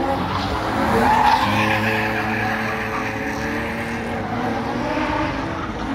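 Drift cars under hard throttle, their engines held at high revs while the tyres squeal and scrub as the cars slide through the course. The engine note is loudest about a second in, then holds fairly steady.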